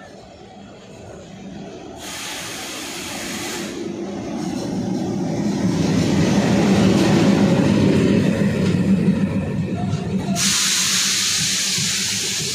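Diesel locomotive pulling a passenger train into a station and passing close by, its engine rumble growing louder to a peak mid-way, then the coaches rolling past as the train slows. Two stretches of loud hiss, one about two seconds in lasting under two seconds and another starting near the end.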